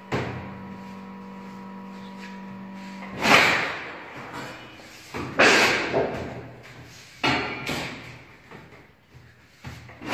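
Hand-lever sword (pala) shear cutting sheet metal: a run of separate shearing strokes, each a sudden rasping crunch that fades, about two seconds apart. A steady hum runs under the first three seconds.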